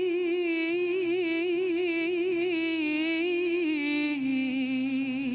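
A woman's voice holding one long ornamented note with a wide vibrato in an istikhbar, the free-rhythm vocal improvisation of Algerian Andalusian music, in the 'Iraq mode; about four seconds in the note steps down to a lower pitch.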